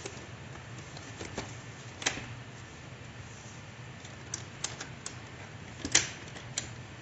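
Plastic clicks and knocks from a robot vacuum's bumper being handled and pressed onto the chassis: a scattered run of sharp clicks, the loudest about six seconds in. A steady low hum sits underneath.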